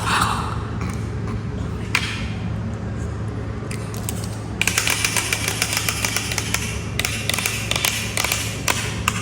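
Steady low hum with light handling noise, then from about halfway in a quick run of clicks and rustling, as of cosmetics packaging being handled.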